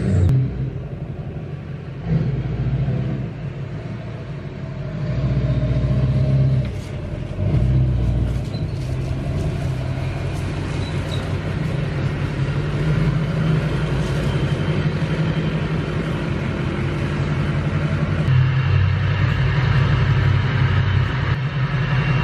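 Chevrolet Silverado pickup's engine running. Its revs rise and fall through the first several seconds while it is driven and manoeuvred, then it settles into a steady idle.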